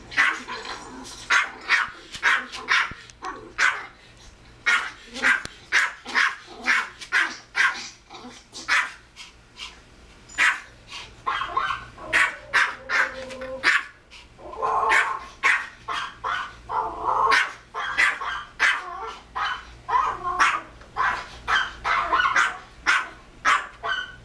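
Pomeranian barking over and over in short, sharp barks, about one or two a second, with a few longer stretches of lower growly barking near the middle.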